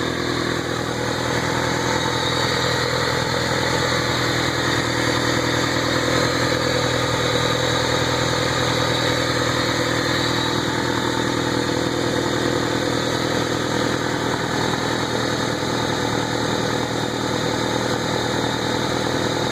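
1994 Honda Civic's four-cylinder engine idling steadily while its cooling system is burped of trapped air through a funnel on the radiator.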